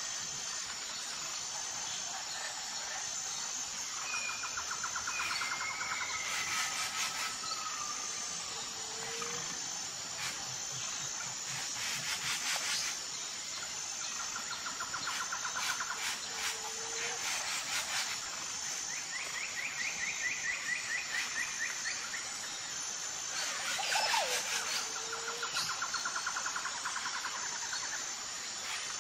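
Crickets chirping steadily, a high pulsing trill under everything, with birds calling now and then in rapid trilled phrases and short whistles. A few brief bursts of hiss come and go.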